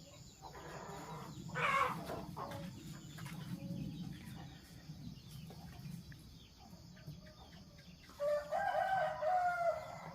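A rooster crowing once near the end, a long held call, with a brief sharp chicken call about two seconds in, over a low steady background hum.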